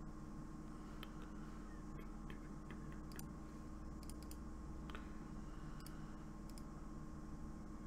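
Faint scattered clicks of a computer mouse and keyboard over a steady low electrical hum.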